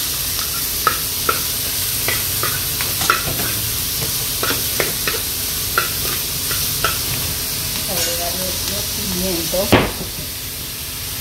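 Seafood and onion sizzling in a hot oiled frying pan while a metal spoon stirs them, clicking and scraping against the pan. One louder sound comes near the end.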